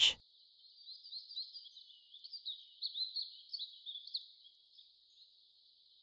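Small songbird twittering: a quick, uneven run of short high chirps and warbled notes, fairly quiet, over a thin steady hiss. It begins about a second in and fades out past the middle.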